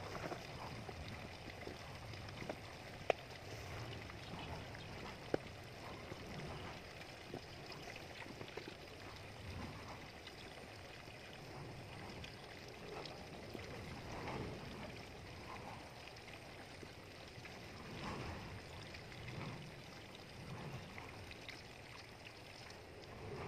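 Light rain hissing steadily, with two sharp ticks about three and five seconds in.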